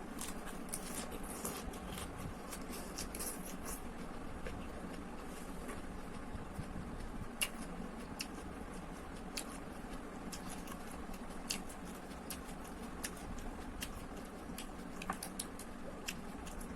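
A person eating instant noodles close to the microphone: scattered short clicks and smacks from chewing and utensils, over a steady low background hum.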